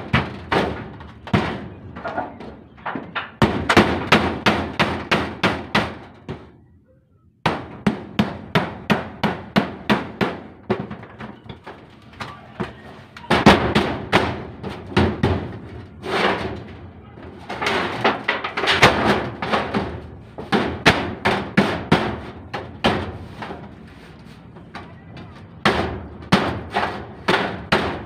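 Claw hammer driving nails into a galvanized corrugated steel roofing sheet: quick runs of sharp, ringing metal blows, about four a second, broken by short pauses.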